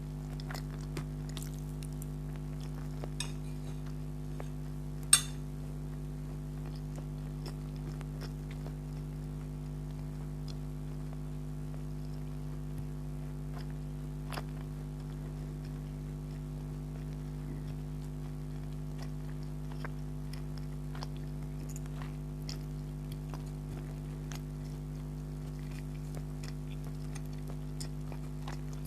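A person chewing a mouthful of spaghetti with scattered small wet mouth clicks, and one sharp clink of cutlery about five seconds in, over a steady low electrical hum.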